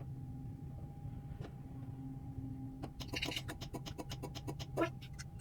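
BOSS garage door opener unit being coded to a remote: a low steady hum, then about three seconds in a quick run of evenly spaced clicks, roughly five or six a second, lasting under two seconds.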